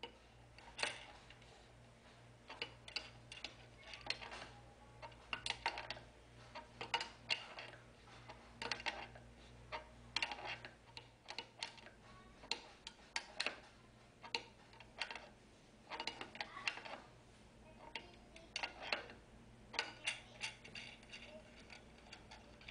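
A metal hand tool clicking in short bursts of ticks every second or two as a nut is turned down into an undersized hole drilled in a wooden block. A faint low hum sits underneath and stops about halfway through.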